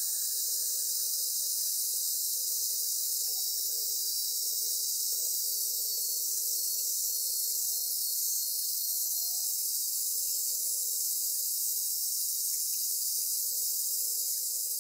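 Rotary polisher with a foam pad running against a painted steel scooter body panel, buffing out the paint: a steady high hiss.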